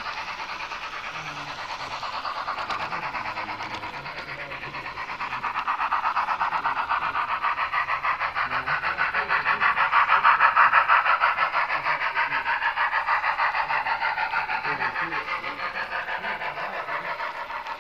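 HO-scale model train running along the layout's track: a steady rolling rattle with a quick, even rhythm, growing louder about ten seconds in and then fading back.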